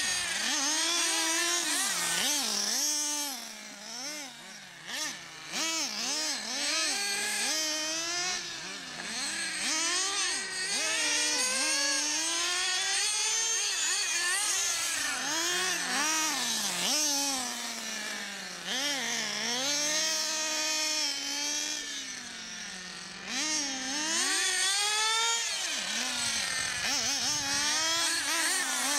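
Small engines of two radio-controlled model cars running hard, a high-pitched buzz that keeps rising and falling as the throttle opens and closes. Two engine notes overlap, and they ease off briefly about four seconds in.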